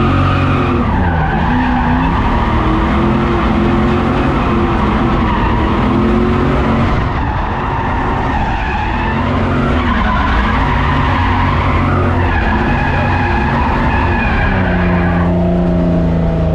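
Car engine revving hard, its pitch climbing and dropping several times, with tyres screeching as the car drifts.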